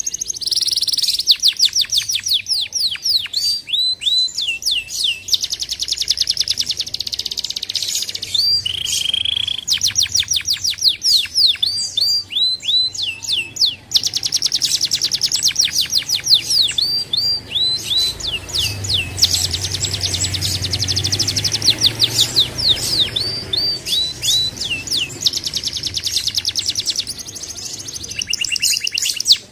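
Domestic canary singing a long song of rapid trills and fast series of repeated swooping notes, with a short pause about halfway.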